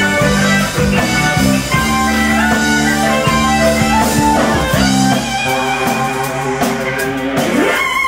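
Live rock band playing an instrumental passage: electric bass guitar, drum kit, keyboards and electric guitar, with no singing. Near the end a rising slide leads into a held higher note as the song draws to its close.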